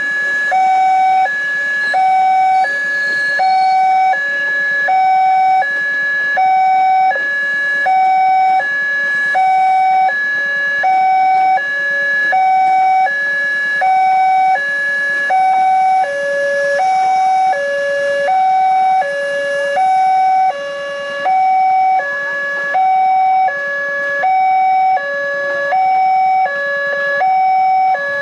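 Railway level-crossing alarm sounding an electronic two-tone signal, a higher and a lower tone alternating steadily, about one high-low cycle a second. An electric commuter train runs past beneath it.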